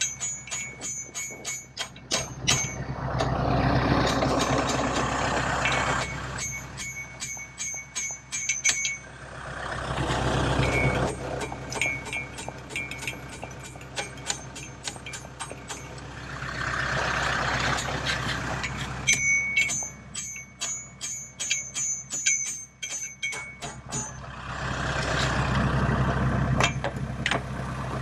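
Steel hammer striking the stuck bucket-clamp levers of a skid steer loader's quick-attach, rapid metal-on-metal blows several a second with a high ringing after each, to knock the seized clamps loose. Four times the strikes pause while a louder rushing noise swells up and dies away.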